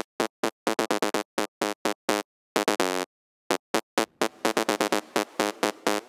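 Software synthesizer lead (Serum), a distorted, high-passed sawtooth patch with a short decay, playing a riff of short staccato notes with brief silences between them. In the last two seconds a faint reverb tail starts to fill the gaps between the notes.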